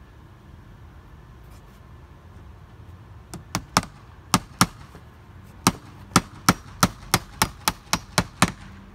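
Hammer blows securing flashing to the gable wall: about fourteen sharp strikes beginning about three seconds in, first two pairs, then a steady run of roughly three a second.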